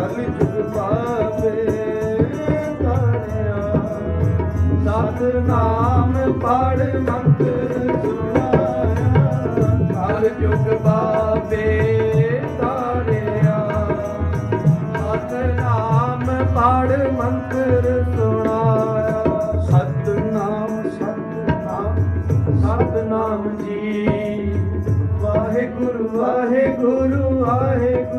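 Sikh kirtan: harmonium holding steady chords under tabla drumming, with a male voice singing the melody of a shabad in bending, ornamented lines.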